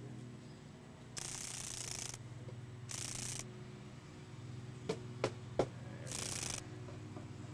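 Swamp darner dragonfly held in the fingers, buzzing its wings in three short high bursts: one of about a second, then two of about half a second. Between the second and third bursts come three sharp clicks in quick succession.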